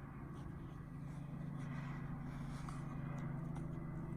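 Faint steady low hum of background noise with a few soft clicks.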